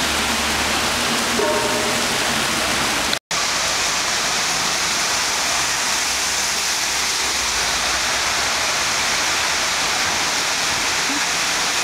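Floodwater rushing in a steady torrent, a continuous noisy wash of water. The sound drops out for a moment about three seconds in, then the rushing resumes.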